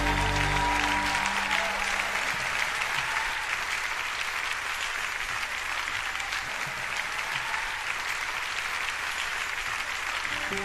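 Concert audience applauding, steady and dense, while the band's last notes die away about a second in.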